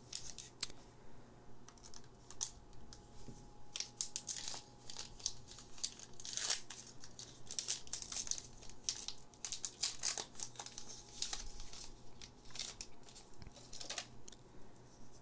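Foil Pokémon Lost Thunder booster pack wrapper crinkling and tearing as it is opened and the cards are pulled out, with many sharp crackles, thickest in the middle.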